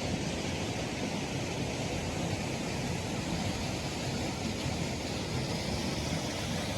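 Steady rushing noise with a rumbling, fluttering low end and no distinct events.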